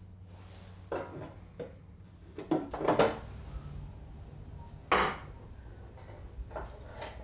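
Table knife working against an old metal tin as its lid is pried open: a series of short metallic clicks, knocks and scrapes, the loudest knock about five seconds in.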